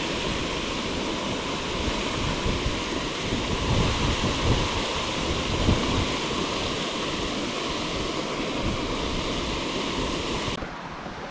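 Steady rush of water spilling over two small stone waterfalls into a pond, with wind buffeting the microphone in low gusts. The rushing cuts off abruptly near the end.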